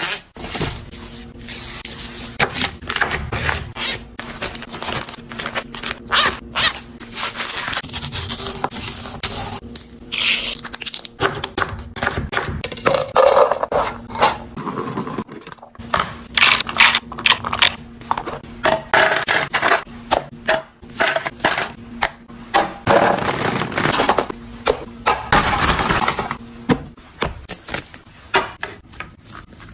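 Containers and groceries being handled, set down and slid about while a refrigerator is organised and restocked: a busy run of clicks, knocks and scrapes.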